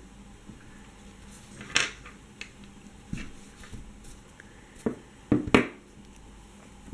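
Scattered light clicks and taps from handling a small piece of woven glass seed beads while a needle and thread are drawn through it, with sharper clicks about two seconds in and a cluster of them around five and a half seconds in.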